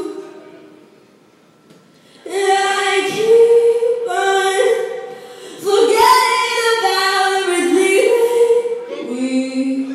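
A young boy's high, unbroken voice singing two long phrases of held notes during a soundcheck, after the previous phrase dies away in the first couple of seconds.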